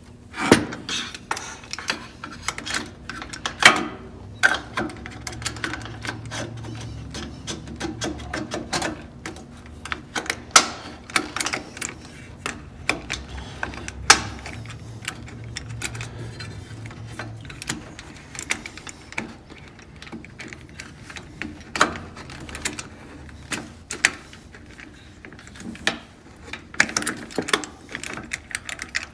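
Irregular metal clicks, taps and light rattles from hardware being handled and fitted on an Innova longarm quilting machine's carriage. These include an aluminium mounting plate with socket head bolts and T-nuts, slid into the channel of the rear axle.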